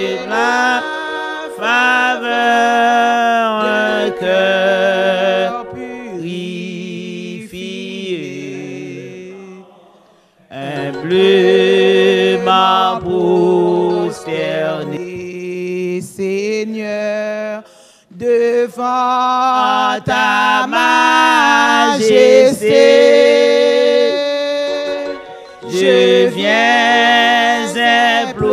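A small group of worship singers sing a song into microphones, phrase after phrase, with short pauses for breath about ten and eighteen seconds in.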